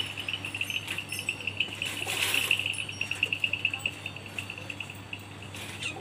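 A high, rapidly pulsing insect trill that fades out about two thirds of the way through, with a brief rustle about two seconds in.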